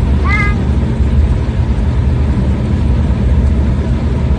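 Steady low rumble of a vehicle in motion, heard from inside it.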